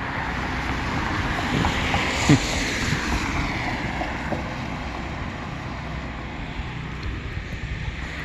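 Wind gusting over the microphone, swelling about two seconds in and easing off. Under it is the steady low hum of distant generators running through a power outage, and a few faint clicks.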